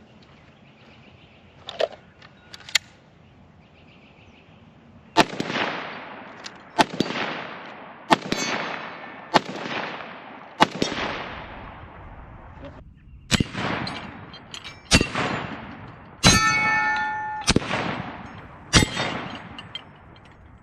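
About ten gunshots fired at a steady pace, roughly one every second or so with a short pause midway, each leaving a long echoing tail. After one of the later shots a steel target rings.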